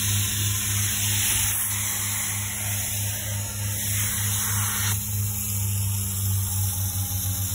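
Carpet-cleaning extraction machine running steadily for upholstery cleaning: a low hum with an airy hiss of vacuum suction over it.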